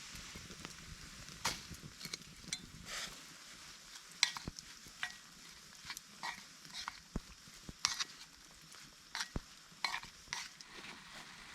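Food sizzling in a pot over a campfire while it is stirred with a utensil: a steady sizzle with scattered sharp clicks and taps.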